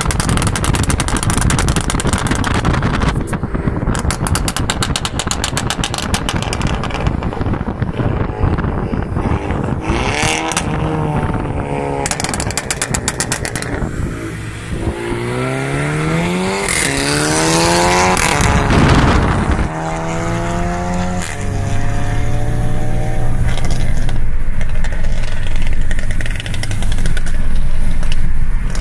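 Tuned Volkswagen Scirocco's exhaust crackling and popping in rapid strings on the overrun, the effect of its pop-and-bang software. Around the middle the engine revs up through the gears with its pitch rising in steps, over steady road and wind noise.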